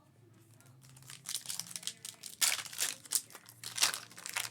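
Foil wrapper of a trading-card pack crinkling and tearing as it is opened, in several crackly bursts that start about a second in and are loudest in the second half.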